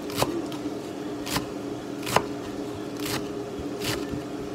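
A large kitchen knife chopping fresh herbs and green onion on a wooden cutting board, about five knocks roughly a second apart. A steady hum runs underneath.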